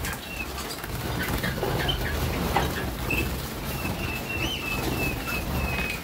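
Young Harzer Roller canaries flapping their wings as they bathe under a bird shower, with short chirps and a string of thin call notes near the end, over a steady low rumble.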